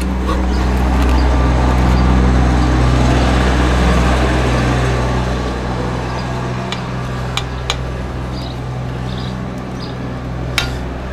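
Steady low motor hum, swelling over the first few seconds and then easing off, with a few sharp clicks in the second half.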